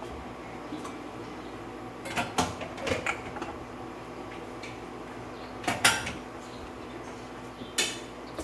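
Kitchen cookware knocking and clattering: a few separate sharp clanks over a steady low hum, with the loudest pair about six seconds in.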